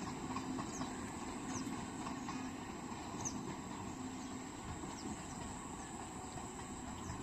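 Train running by fields: a steady rumble and rail noise, with short high falling chirps scattered over it.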